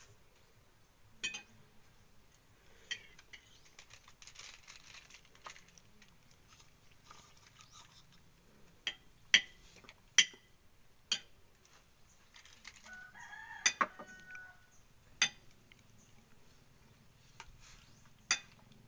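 Sharp metallic clinks of a utensil and lid against a cooking pot, scattered through, with a rooster crowing once about two-thirds through.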